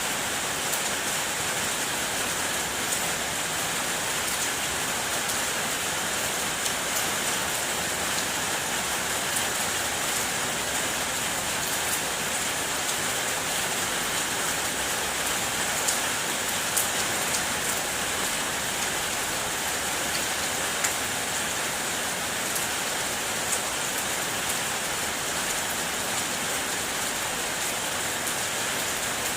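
Steady rain falling in an even hiss, with single drops tapping out now and then.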